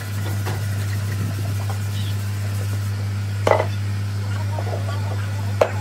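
A few sharp knocks and taps from hand work with a metal paint tin, a stirring stick and a helmet shell, over a steady low hum. The loudest knock comes about midway, another near the end.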